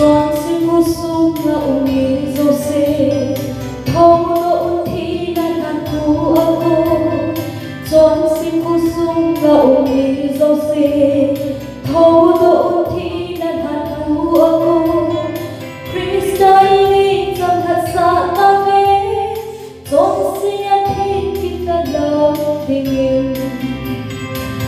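A woman singing a Christian gospel song into a handheld microphone over instrumental accompaniment with a steady beat, in phrases a few seconds long.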